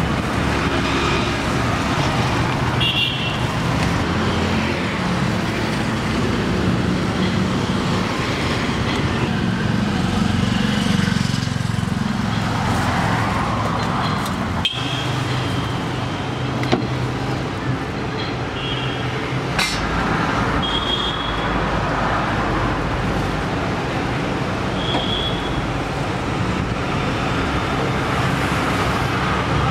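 Steady road traffic noise with several short vehicle-horn toots and one sharp click about two-thirds of the way in.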